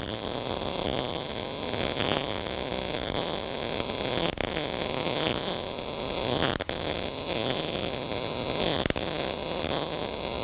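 MIG (gas metal arc) welding arc running steadily at about 17 volts and 195 wire speed, with a few sharp pops, as weld metal is padded across an oversized gap in the steel plates.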